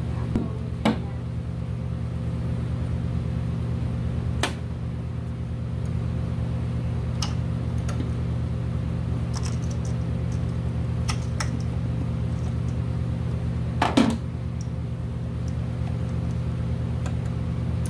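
A steady low mechanical hum throughout, with a few scattered light clicks and knocks, the loudest about 14 seconds in, from rubber fuel hoses and fittings being handled in a car's engine bay.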